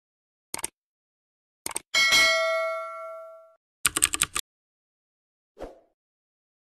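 Subscribe-button animation sound effects: a couple of quick mouse-style clicks, then a bright bell ding that rings out for about a second and a half. A rapid run of about five clicks follows, and a short soft thud comes near the end.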